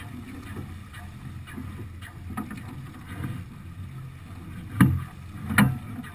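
Steady wind and water noise aboard a Beneteau sailing yacht under way, with two sharp knocks less than a second apart near the end.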